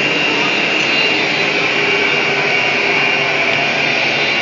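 A wood CNC router running steadily: a constant high spindle whine over a broad rushing machine noise.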